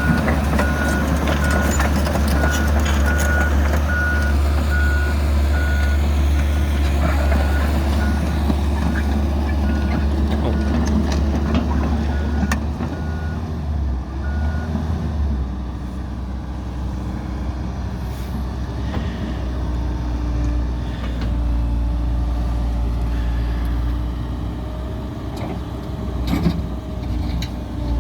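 Komatsu PC160LC-7 hydraulic excavator running, its diesel engine humming steadily while its travel alarm beeps over and over, with scattered clicks and knocks. About halfway through the beeping stops and the engine settles to a lower, steadier run.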